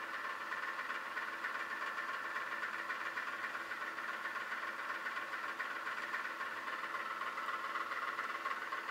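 A steady mechanical hum with a hissing whir, unchanging in level.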